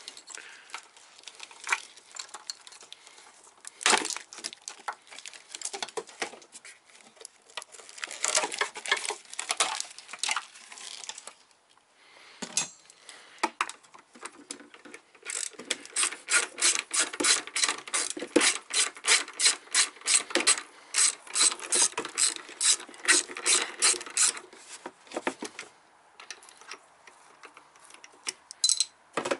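Hand ratchet wrench clicking as fasteners are worked loose, in short runs and then a long steady run of about four clicks a second in the second half.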